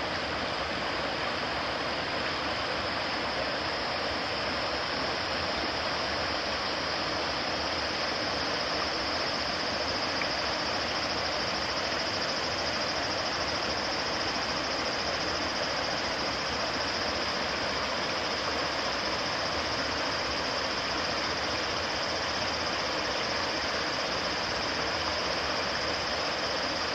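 Steady rushing of flowing stream water, an even noise with no breaks, with a steady high-pitched hiss riding on top.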